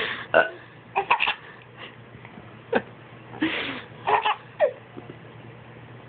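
A man burps twice, a short one right at the start and a longer one about three and a half seconds in, and a baby giggles in short high bursts around and after each burp.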